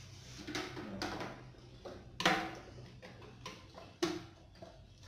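Hard plastic parts of a Pureit Classic water purifier being handled and fitted together: a handful of short knocks and clicks, the loudest a little over two seconds in.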